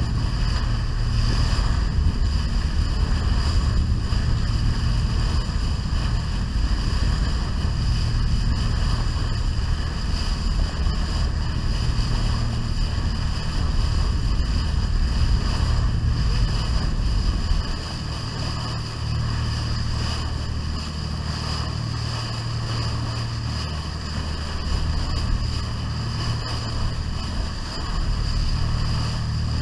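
Boat under way: wind buffeting the microphone with a steady low rumble, over the rush of the bow wave breaking against the hull. The low rumble eases a little about two-thirds of the way through.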